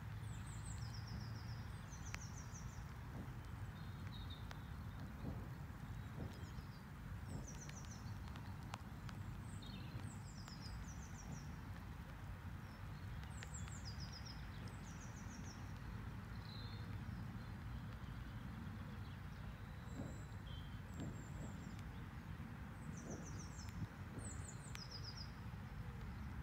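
Small birds chirping, many short high calls repeated on and off, over a steady low outdoor rumble.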